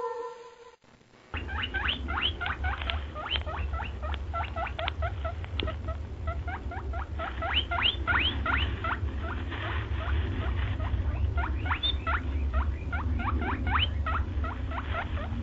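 Rapid short rising squeaky chirps, several a second, like small animal calls, over a steady low hum, starting after a brief silence.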